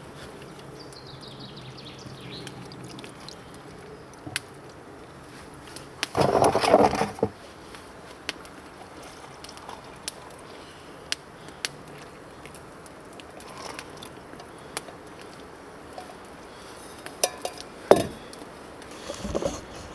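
Stainless steel camping pots and mugs being handled, with scattered clinks and knocks. A louder spell of clatter and pouring milk comes about six seconds in, and a sharp knock near the end.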